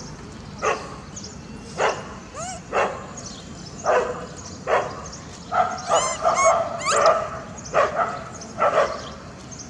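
Short, sharp animal calls, roughly one a second and bunched together around the middle, with a few high rising-and-falling squeaks among them.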